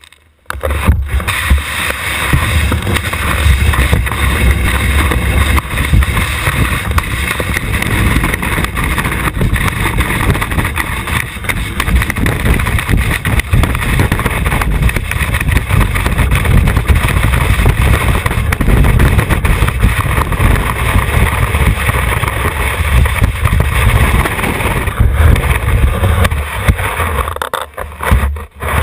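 Coomba ski running over snow, heard through a camera mounted on the ski itself: a loud, continuous rumbling rush with scraping hiss. It starts about half a second in and drops away briefly near the end.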